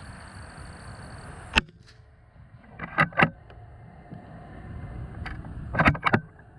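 A single sharp crack of a .22 Long Rifle round fired from a Suhl 150 target rifle, about a second and a half in. Two short clusters of loud clicks follow, about a second and a half apart and again near the end, as the rifle's bolt is worked to reload.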